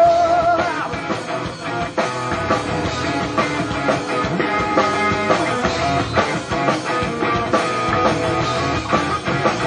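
Live rock band playing an instrumental passage between sung lines, with electric guitars over a steady drum-kit beat.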